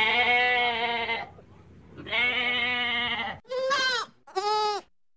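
Goats bleating: two long bleats, then two short, higher-pitched bleats.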